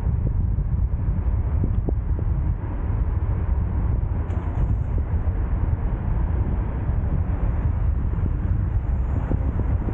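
Steady low rumble of wind buffeting the microphone mixed with vehicle noise, heaviest in the bass.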